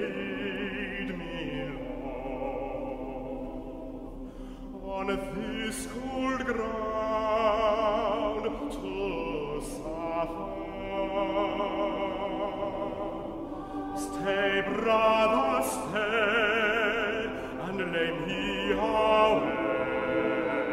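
Chamber choir singing a slow arrangement of a traditional song, several voices with vibrato in long phrases that swell and ease, with church reverberation.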